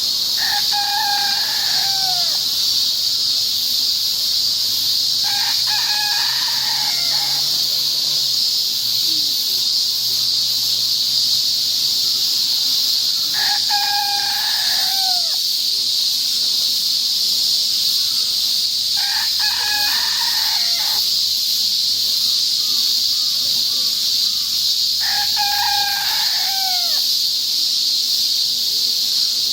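A rooster crows five times, each crow about two seconds long and spaced several seconds apart. Under it runs a loud, steady chorus of cicadas, the loudest sound throughout.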